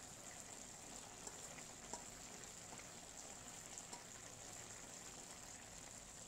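Faint simmering crackle from a steel pot of vegetables cooking on the stove, with a few soft ticks.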